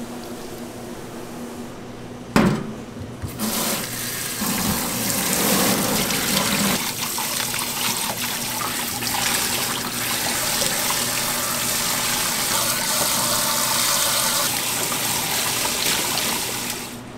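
Kitchen tap running a steady stream of water onto green onions and cilantro rinsed by hand in a stainless steel sink, a loud, even hiss and splash. It starts with a single sharp knock about two seconds in.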